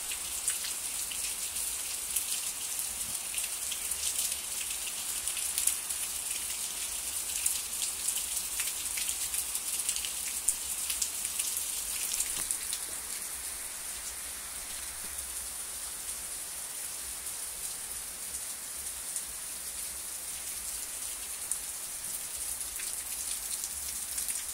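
Heavy, steady rain with no wind, with sharp hits of drops on a concrete wall ticking through the hiss. It eases slightly about halfway.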